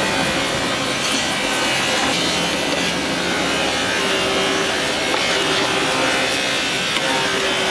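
Steady rasping of a tool abrading the plastic of a car bumper during repair.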